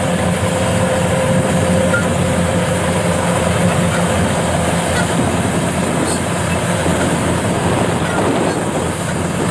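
Tracked rice combine harvester running under load while cutting rice: a loud, steady drone of engine and machinery, with a faint whine over it in the first couple of seconds.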